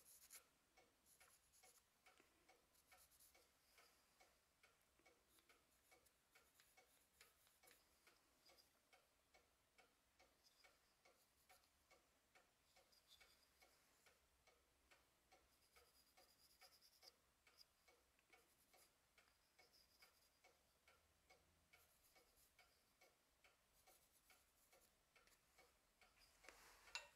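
Near silence with faint, even ticking, several ticks a second, and now and then a faint scratch of a pencil on wood.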